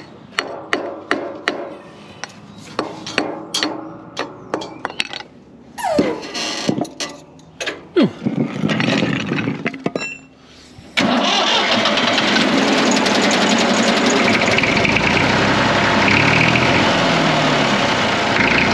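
Metal clinks and knocks from a bottle jack and its steel handle, with a couple of squeaks that fall in pitch. About eleven seconds in, the Massey Ferguson 35 tractor's engine starts at once and runs steadily and loudly.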